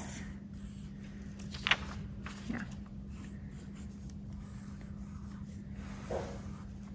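Pencil scratching across paper as a drawing is traced onto a copper plate underneath, over a steady low hum. A brief, louder sharp sound comes a little under two seconds in.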